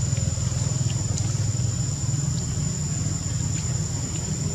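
A steady low engine rumble, with a constant high-pitched whine over it and a few faint short chirps.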